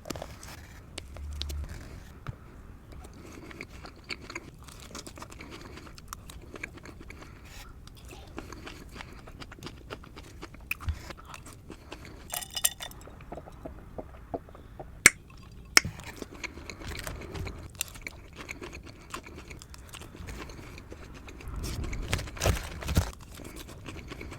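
Close-up eating sounds of a gyro being bitten and chewed, with many short wet mouth clicks; a louder run of bites comes near the end.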